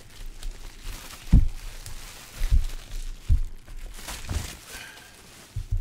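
Bubble wrap crinkling and rustling as it is handled and pulled off a boxed card set, with a few short, dull thumps along the way.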